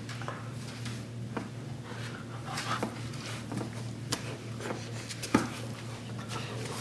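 Grizzly cub and goldendoodle wrestling on a tile floor: scuffling, with claws clicking and scraping on the tiles. There is a sharper knock about five seconds in, over a steady low hum.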